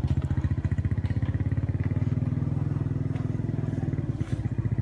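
A small engine running steadily with a fast, even low throb.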